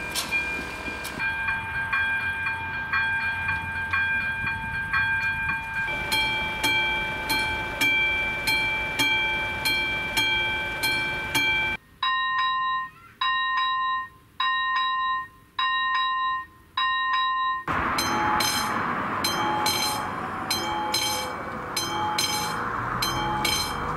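Czech level-crossing warning bells ringing, a steady series of sharp dings at about one and a half to two a second. The bell's tone and speed change three times as one crossing gives way to another; one crossing has a slower, separated ding of about one a second.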